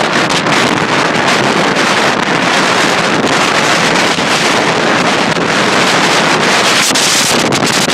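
Gale-force wind blasting across the microphone, a loud, steady rush of noise, with big waves breaking on the shore underneath it.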